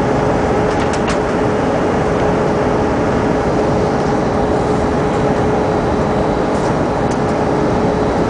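Airbus A320 cabin noise on the landing approach: a steady rush of airflow and engine sound with a constant hum running through it.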